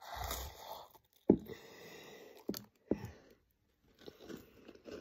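A chocolate chip cookie being bitten and chewed close to the microphone, with crunching and mouth noises. Three sharp knocks cut through, the loudest just over a second in.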